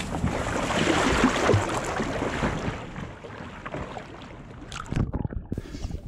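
Water sloshing and splashing as a person wades through a flooded river channel, with some wind on the microphone. A few sharp splashes come near the end, then the sound goes muffled as the camera dips under the water.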